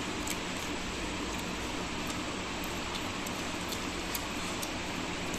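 Steady background hiss with a faint low hum, like a running fan or air conditioner, under scattered faint clicks from eating with the fingers off a steel thali.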